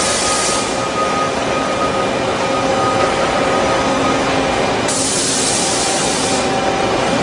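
Doosan PUMA QL300H CNC lathe running with a steady machine hum and faint whining tones. A hissing spray cuts off about half a second in, and a second one comes about five seconds in and lasts about a second and a half.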